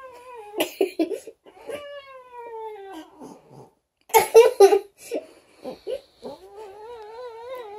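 Domestic cat yowling in long, drawn-out protest calls while being held: a falling yowl near the start, another about two seconds in, and a wavering one near the end, the sound of an annoyed, uncomfortable cat. Short louder noises break in about four seconds in.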